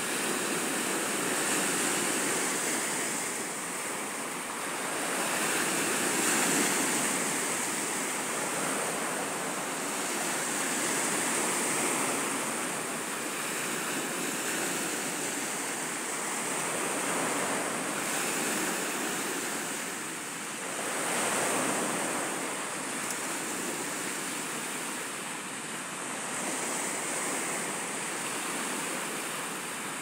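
Sea waves breaking on a pebble beach, a steady wash of surf that swells and eases every few seconds as each wave comes in.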